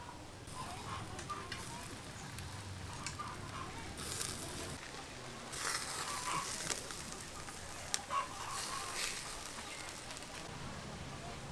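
Whole ducks grilling over a charcoal fire on a wire grill: fat sizzling and crackling on the coals, flaring up louder a few times. Chickens cluck now and then in the background.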